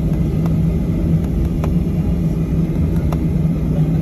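Jet airliner heard from inside the cabin while taxiing: a steady low rumble with an even engine hum, and a few faint clicks.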